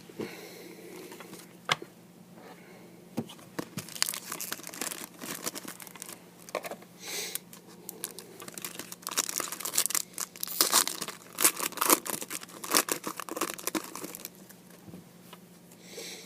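Trading-card pack wrappers being torn open and crinkled by hand, a long run of rapid crackles that is busiest through the middle and fades near the end.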